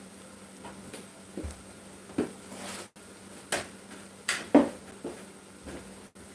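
Cornbread patties frying in hot oil in a cast-iron skillet, a steady faint sizzle, broken by several sharp knocks and clicks of kitchen things being handled.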